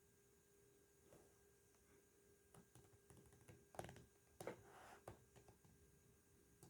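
Near silence: a faint steady hum, with a few soft clicks and knocks around the middle. No siren is heard.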